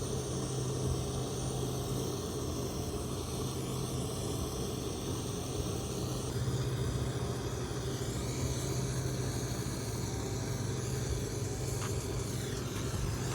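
Steady low mechanical drone of a running engine or motor, with a constant hum and no breaks.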